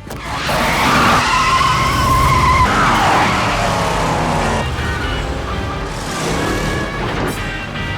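Car chase soundtrack: a car engine running hard with tyres squealing. A long squeal is held from about one to nearly three seconds in, over background music.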